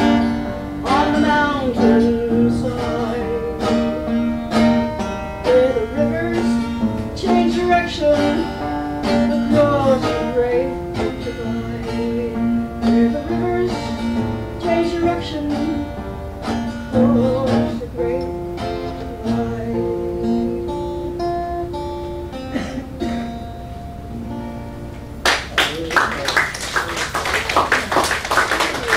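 Acoustic guitar playing the last bars of a folk song, the notes thinning out toward the end. About 25 seconds in, an audience breaks into applause.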